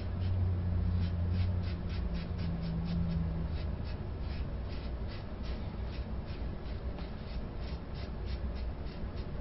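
Single-edge safety razor (Ever Ready with a GEM blade) scraping through lathered stubble in quick short strokes, roughly two to four rasps a second, unevenly spaced. A low hum sounds under the first few seconds.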